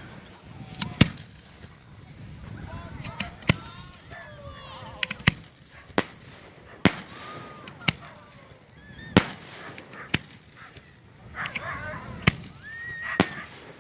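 Fireworks going off: a string of sharp bangs, about a dozen, irregularly spaced roughly a second apart.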